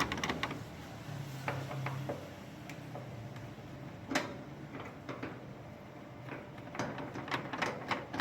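Hand screwdriver backing screws out of a top-load washing machine's panel: scattered small clicks and light knocks as the screws and panel are worked loose.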